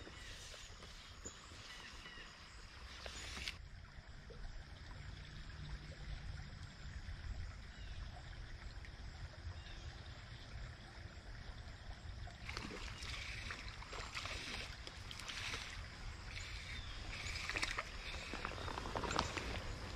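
Quiet ambience of a small shallow stream: soft running water over a steady low rumble. A little past halfway, scattered light clicks and rustles begin as fly line and reel are handled.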